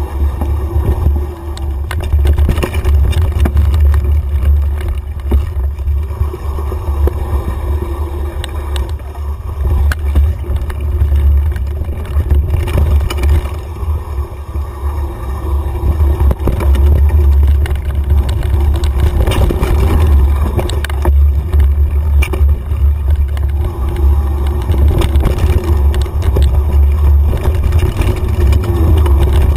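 Mountain bike ridden fast over rough dirt singletrack: a heavy, steady wind rumble on the camera microphone, with frequent rattles and knocks from the bike jolting over roots and bumps.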